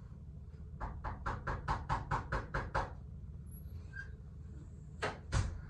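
Rapid knocking on a wooden front door, heard from inside the room: about ten quick knocks at roughly five a second. About two seconds later come two louder sharp clacks as the door's knob and latch are worked to open it.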